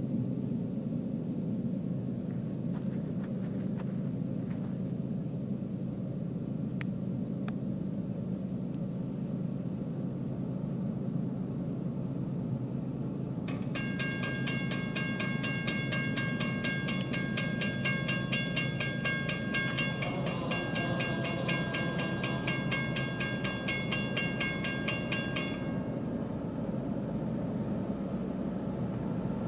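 Railroad grade-crossing bell starts about halfway through and rings in rapid, even strokes, stopping a few seconds before the end. Under it, a steady low rumble from an approaching diesel train.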